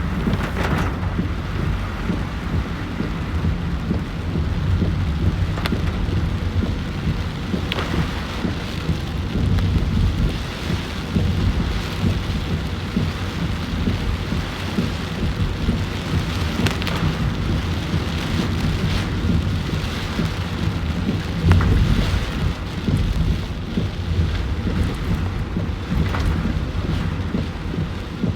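Heavy typhoon rain falling steadily, with a low rumble that rises and falls throughout and scattered sharper splashes.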